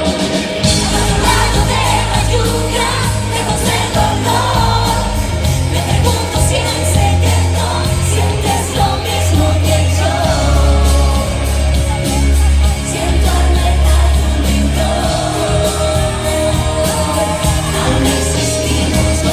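Live pop song played by a band, with a steady drum beat and a strong bass line under a woman's sung lead, and a crowd audible in the mix.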